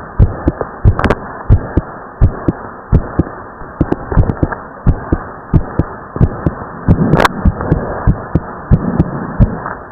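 A teenage boy's heartbeat after hard exercise, heard close up as a steady run of low lub-dub thumps in pairs, with the second sound split. There is a brief scrape about seven seconds in, over a constant hiss.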